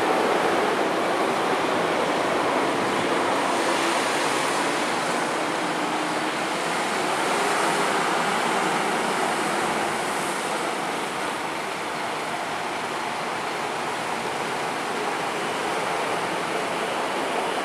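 Old-generation SMRT metro train running on an elevated concrete viaduct: a steady rushing noise of wheels on rail, fairly even in level throughout, with no distinct clicks or squeals.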